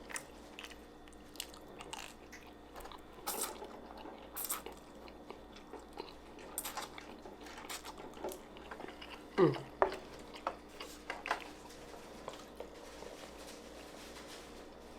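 Close-miked chewing and biting of Chinese takeout food, scattered wet clicks and crunches at irregular intervals, with one brief vocal sound about nine seconds in.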